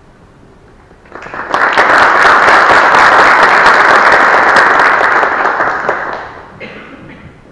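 Audience applauding in a hall. It starts about a second in, quickly grows loud, then fades out near the end.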